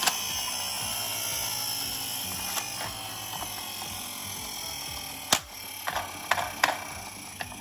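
A toy ambulance mini car whirring steadily as it runs, the whir slowly fading. A sharp click comes a little past five seconds in, followed by a few lighter clicks.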